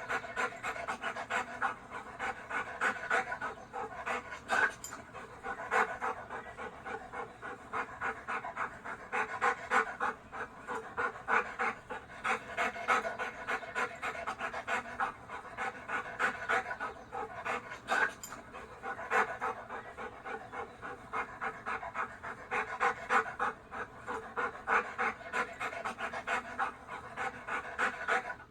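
Dog panting, quick short breaths in and out in an even, fast rhythm.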